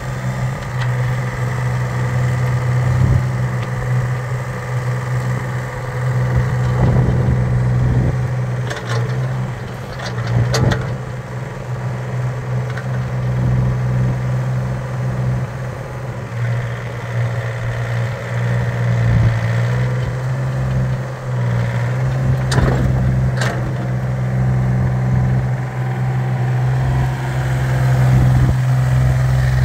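Takeuchi TB025 mini excavator's diesel engine running steadily while the boom, arm and bucket are worked. A few short, sharp knocks come through it, a couple about a third of the way in and again past two-thirds.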